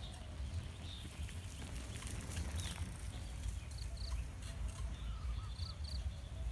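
Bicycle tyres rolling over dry bamboo leaves on a dirt path, a cluster of crackling clicks as the bike passes close about two to three seconds in, over a low rumble. Birds chirp in short high trills in the second half.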